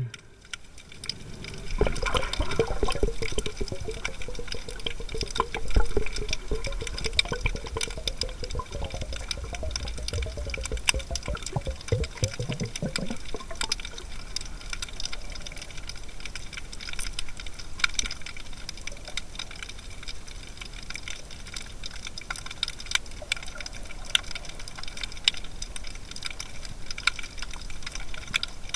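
Underwater sound picked up by a dive-mask camera: a constant crackle of small clicks. For roughly the first dozen seconds a low rumble with a wavering tone runs under it, then fades out.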